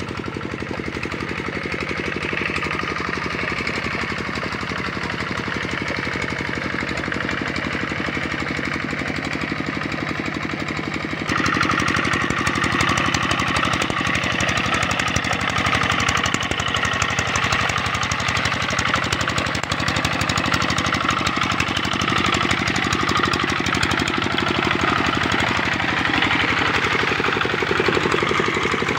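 Kubota RD65 single-cylinder diesel engine of a hand tractor running steadily under load while tilling a flooded rice paddy, with a fast, even chugging beat. It becomes abruptly louder about eleven seconds in.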